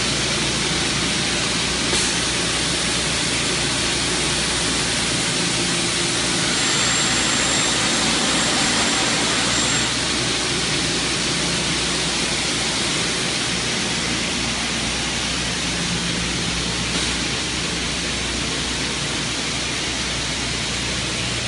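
Double-head aluminium cutting saw running: a steady whirring hiss from its spinning blades and motors over a low hum.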